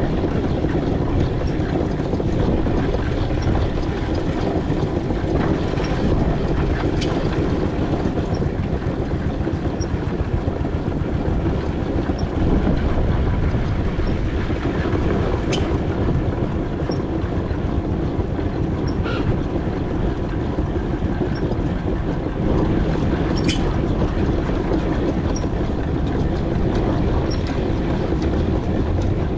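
4-inch-scale McLaren steam traction engine on the move, a steady dense mechanical running noise with a few sharp clicks.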